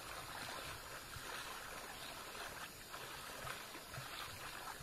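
Steady rush of flowing river water from a river in flood.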